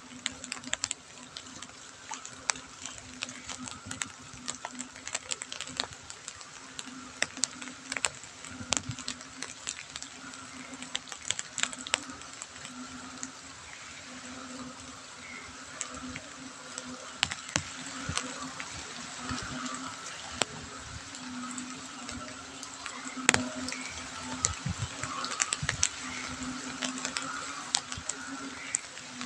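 Light drizzle pattering steadily on a wet paved lane, with many sharp close drops and drips. Underneath, frogs call in a low pulsing chorus, about once a second.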